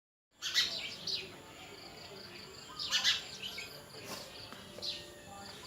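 Birds chirping: a handful of short, loud calls, with a small creature's chirp repeating about four times a second underneath.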